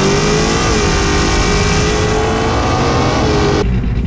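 Pickup truck engine at full throttle on a drag-strip run, a loud, high, fairly steady engine note that cuts off suddenly near the end.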